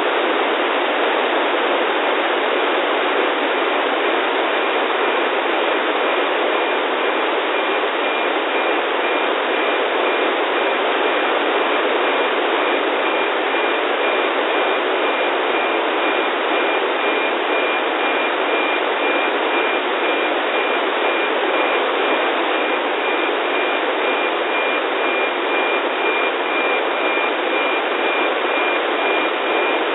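Static from an RTL-SDR receiver in narrowband FM tuned to NOAA 15's 137.62 MHz downlink: a loud, steady hiss. A thin, high, steady tone comes in about two seconds in and grows stronger later on. This is the carrier tone of the satellite's APT weather-image signal, still weak and mostly buried in noise.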